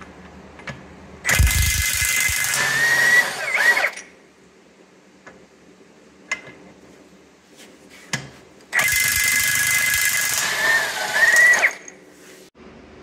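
Impact wrench run twice, about three seconds each, spinning bolts off a combine's dual wheel rim; each run whines steadily and dips in pitch just before it stops.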